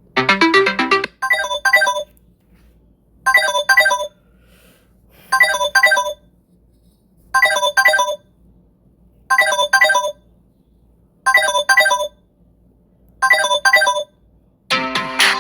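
Samsung Galaxy S23 Ultra ringtone: a short electronic double ring repeated about every two seconds, seven times. The tail of a different ringtone is heard in the first second, and another, busier ringtone begins near the end.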